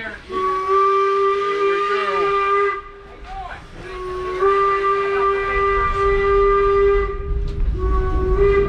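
Steam locomotive whistle blowing long steady blasts: two full blasts, with a third starting near the end. A low rumble from the train grows in the second half.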